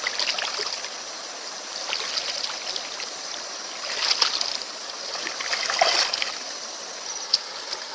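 Water running and splashing, with a few sharper splashes about four and six seconds in.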